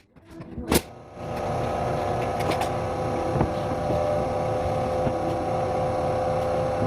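A click, then an electric motor starts about a second in and runs at a steady pitch with a constant hum, stopping right at the end.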